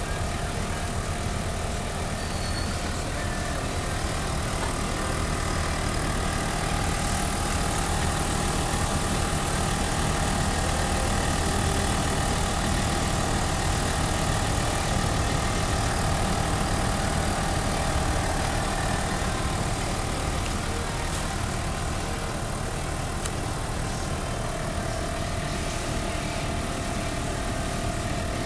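Airford 12V portable tire air compressor running steadily while inflating a car tire: a continuous mechanical drone with a held whine, swelling slightly in the middle.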